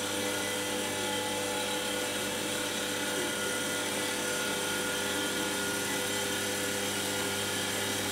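Steady machine hum and whine from a curtain-making machine's motors, with a low hum and several higher steady tones over a hiss.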